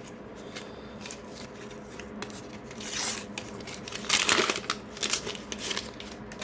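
A sticker pack's wrapper being torn open and crinkled, with rustling bursts about three seconds in and, loudest, about four seconds in, among light clicks of handling.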